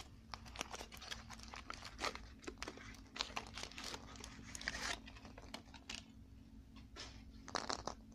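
Foil wrapper crinkling and tearing as fingers peel it off a chocolate ball. There is a dense run of crackles for the first few seconds, then fewer, and a short last burst near the end.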